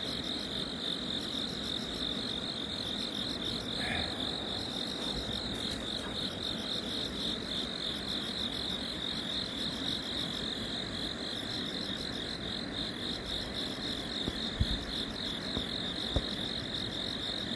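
Steady chorus of night insects, a continuous high trill with a fast, even pulse. There are a couple of faint knocks near the end.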